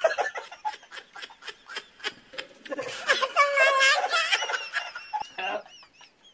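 Two young men laughing hard in rapid, breathy bursts, rising into a long, higher-pitched squealing laugh around the middle before it dies away near the end.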